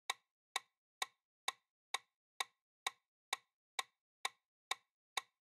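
Quiz countdown-timer sound effect: a clock-like ticking, about two ticks a second, with silence between the ticks.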